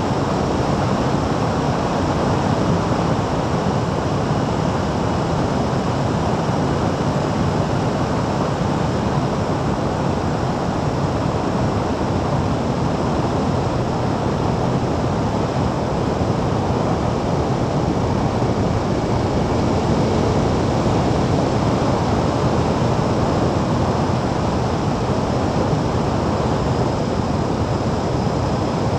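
Steady rush of wind over the microphone of a camera riding on a moving motorcycle, mixed with the bike's running and tyre noise at road speed.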